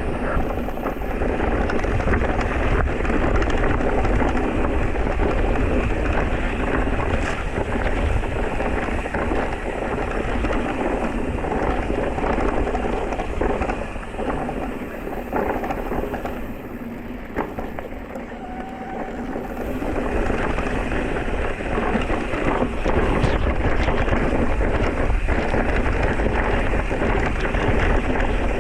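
Electric mountain bike riding over a rough trail: tyres crunching and the bike rattling and clicking continuously, with wind buffeting the microphone. The noise eases for a few seconds past the middle.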